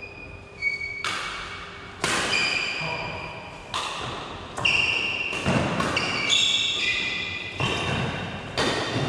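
Badminton rally in a large echoing hall: rackets strike the shuttlecock about once a second with sharp hits. Each hit is followed by a short high ringing tone that fades.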